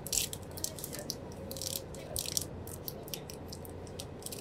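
Thin plastic snack wrapper crinkling in quick irregular crackles as fingers peel it open, over a steady low hum.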